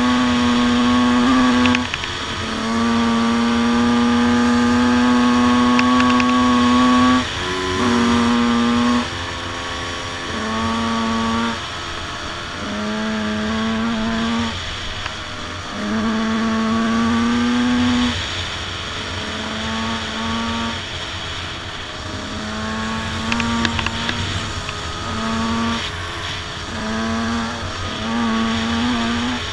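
Single-cylinder two-stroke engine of a Yamaha YZ125 motocross bike being ridden, its note held in steady pulls of one to five seconds that repeatedly break off and pick up again as the throttle is rolled on and off. A second two-stroke dirt bike, a Honda CR250, runs alongside.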